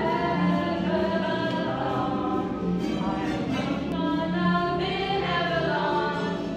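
A group of voices singing together in harmony, holding long chords that change every second or two.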